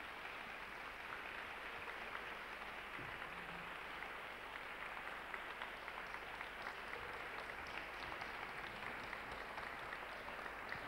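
Audience applauding, a steady, even round of clapping.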